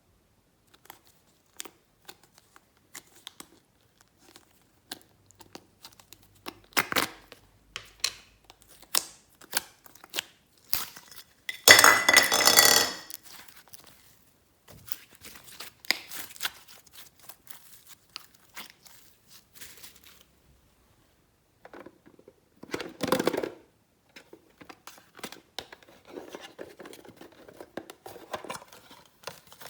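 Close-up handling sounds of slime and small cosmetic and plastic items: scattered clicks, taps and crinkles, with a louder crinkling rush a little before the middle and a shorter one about three-quarters of the way through.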